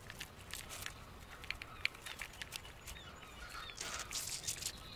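A raccoon foraging among rocks and shells on the shore: scattered light clicks and taps, with a few short, faint bird chirps.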